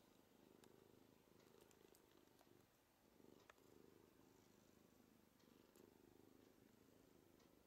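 A long-haired tabby cat purring faintly, a low rumble that swells and eases with its breaths.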